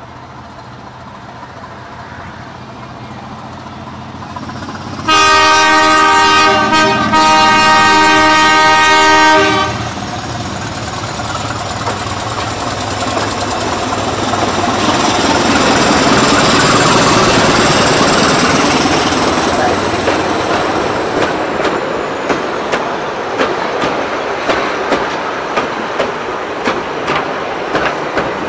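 Heritage diesel locomotive approaching and sounding its horn in two long blasts back to back about five seconds in, then passing with its engine running, followed by heritage passenger carriages with their wheels clicking steadily over the rail joints.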